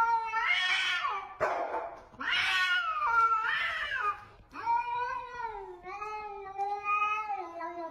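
Cats in a hostile standoff: long, wavering yowls with a sharp hiss about one and a half seconds in, ending in one long, lower, drawn-out yowl.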